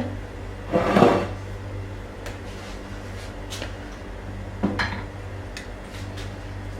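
Kitchen dishes and utensils being handled: a short scraping rustle about a second in, then a handful of scattered light clinks and knocks, over a steady low hum.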